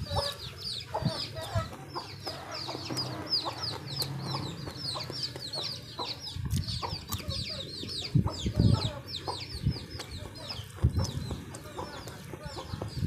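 Birds chirping steadily in the background, a rapid, unbroken run of short high peeps that fall in pitch. Under them come close, low, muffled chewing and hand-on-food noises, loudest a few times in the second half.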